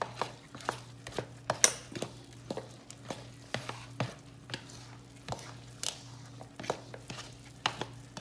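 Soda bread dough being stirred by hand in a stainless steel mixing bowl: irregular knocks and clicks against the metal bowl, about one or two a second, over a steady low hum.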